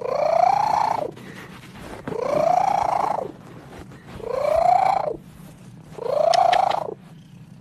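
Orange tabby cat giving four long meows about two seconds apart, each rising then falling in pitch, over a steady low purr.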